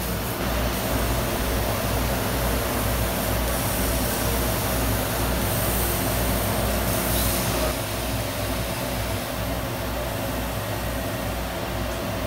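Laser cutter running: a steady machine noise, a low hum under a hiss, easing slightly about eight seconds in.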